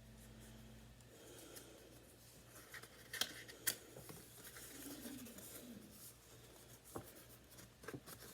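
Faint rustling of paper and card being handled, with a few sharp clicks and snaps.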